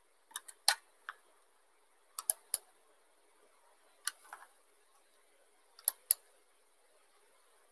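Short, sharp clicks in small clusters of two or three, about a dozen in all, with quiet between them.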